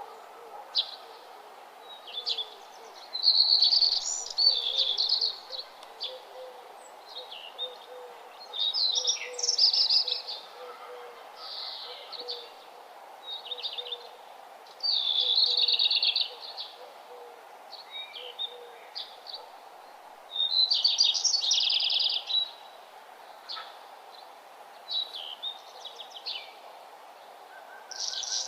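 Songbirds singing: a bird repeats a rich warbled song phrase of one to two seconds every five or six seconds, with shorter chirps in between, over a steady background hiss.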